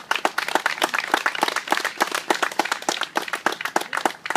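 Small outdoor crowd applauding, a dense patter of individual hand claps.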